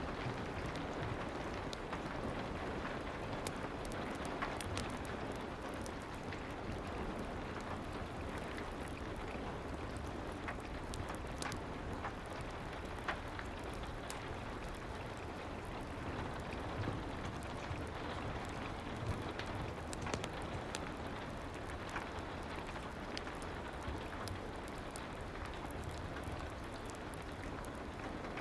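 Steady soft rain, sprinkled with many faint, scattered ticks.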